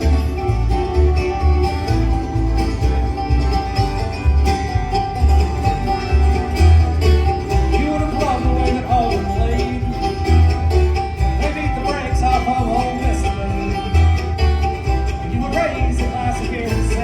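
Background music: a country-style song with plucked strings over a steady bass beat.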